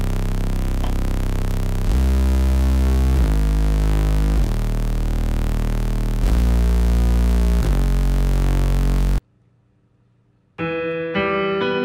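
Deep synthesizer bass patch ('Stitches Bass' from the Alliance Kontakt library) playing six long held low notes in turn. It stops about nine seconds in, and after a short pause a bright keyboard patch begins playing ringing notes.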